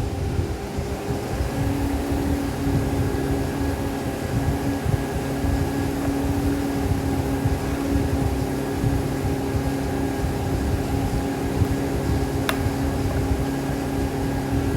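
Steady machine hum with a low rumble and a held tone, broken once by a sharp click near the end.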